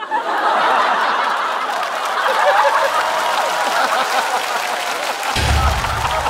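Studio audience laughing and applauding as a punchline lands. Near the end a low boom comes in.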